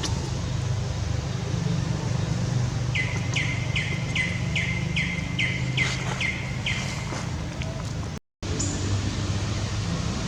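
A run of about nine short, high chirps, each falling in pitch and repeated a little over twice a second, over a steady low rumble of background noise.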